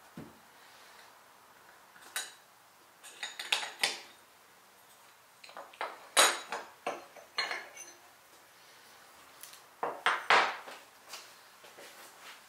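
Metal clinks and knocks of a hand plane and its parts being handled and set down on a wooden workbench, coming in three short clusters.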